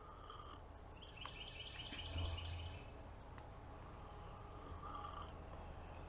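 A songbird's rapid trill, about a second and a half long, starting about a second in, with a few fainter calls later over quiet woodland background noise.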